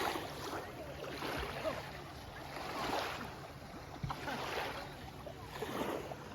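Small waves washing onto a beach, each swell of water rising and falling about every second and a half.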